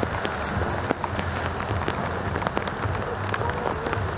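Rain striking the action camera's case in many scattered clicks over a steady hiss, with the motorcycle's single-cylinder engine running low and steady underneath.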